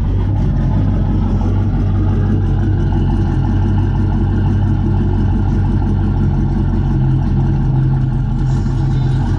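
Chevrolet Camaro engine idling steadily through its quad-tip exhaust.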